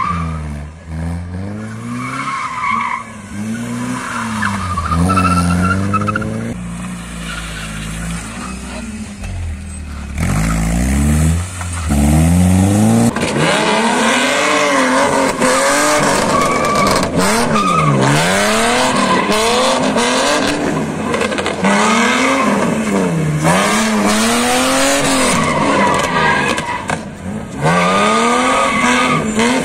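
BMW 3 Series drift cars sliding around a tyre barrier: engines revving up and down over and over while the tyres squeal. Partway through, a louder car takes over, its revs rising and falling in quick repeated sweeps.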